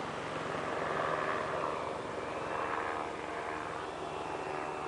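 Small electric radio-controlled model airplane's motor and propeller buzzing steadily in flight, the pitch shifting up and down a little as it flies around.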